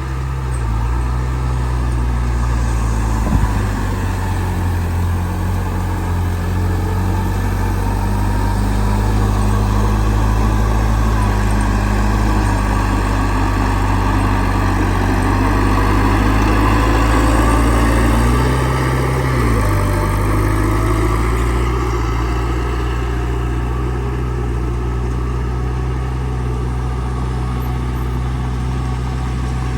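Heavy diesel engine of earthmoving machinery running steadily under varying load, its pitch dipping and recovering briefly past the middle. A single sharp knock about three seconds in.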